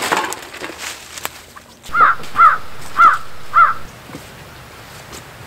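A crow cawing four times in quick succession, each caw a harsh arched call. A brief rustle comes just before them.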